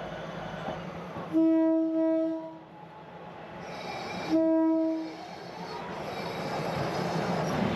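Mae Klong Railway train's horn sounding two blasts about three seconds apart, the first a little longer and briefly broken.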